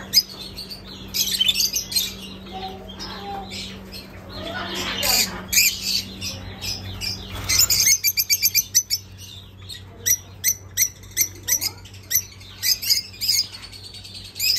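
Lovebirds chirping and chattering: many high-pitched calls overlapping, with a quick run of rapid chirps about eight seconds in, over a steady low hum.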